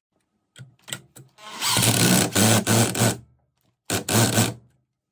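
A small electric power tool running in two short bursts, the first about two seconds long and the second under a second, after a few light clicks.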